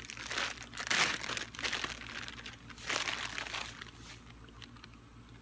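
A crinkly plastic packet being handled and pulled open, in several bursts of crackling rustle that die away near the end.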